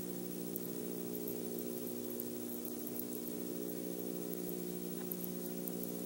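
Steady low electrical hum made of several even tones, the background noise of the nest-box camera's microphone, with a faint tick about five seconds in.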